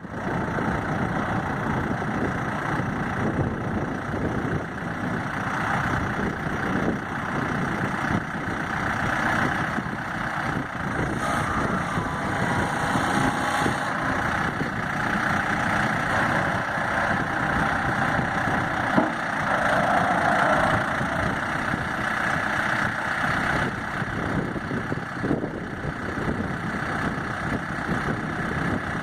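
Diesel engine of a 2014 New Holland LB75B loader backhoe running steadily at idle.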